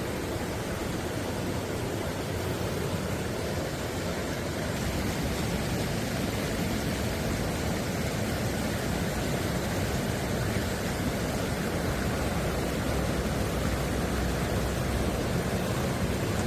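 Steady rushing of a mountain stream's water, an even noise that grows a little louder about five seconds in.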